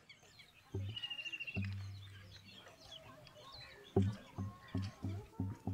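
Deep drum beats over birds chirping: two strikes about a second apart, the second ringing on, then a quick run of strikes from about four seconds in. Short bird calls and a brief trill sound throughout.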